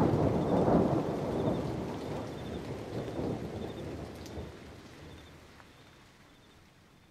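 A deep, noisy rumble, heaviest in the bass, that fades away steadily over about six seconds to near silence.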